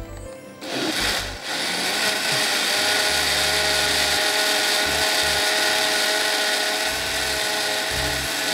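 Electric kitchen blender motor starting about a second in, cutting out briefly, then running steadily at high speed.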